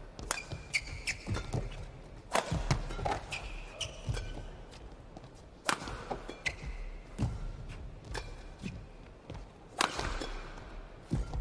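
Badminton rally: rackets strike the shuttlecock sharply every second or two, with short high squeaks of players' shoes on the court mat in between.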